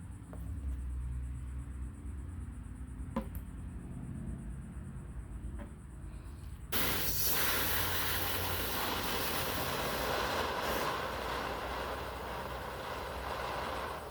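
Water spray from a washing hose or sprayer, starting abruptly about halfway through and running as a steady hiss. Before it there is only a low rumble.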